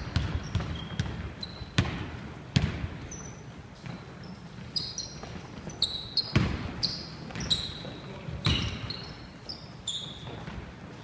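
A basketball dribbled on a hardwood gym floor, with sharp bounces every half second or so at first. From about halfway in come short, high squeaks of sneakers on the wooden court, mixed with a few more bounces.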